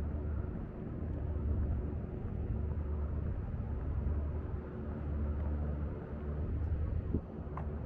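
Steady low rumble of outdoor background noise, such as passing traffic or wind. A short click comes near the end, followed by a brief rising squeak.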